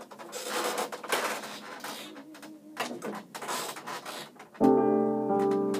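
Rustling and handling noise from clothing and a phone being moved, then about four and a half seconds in a chord struck on an upright piano, loud and ringing on.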